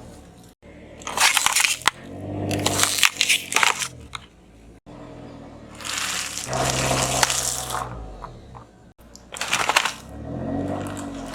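A car tyre rolling over crunchy objects and crushing them, with bursts of crackling and snapping over a low hum. It comes in several short takes cut together.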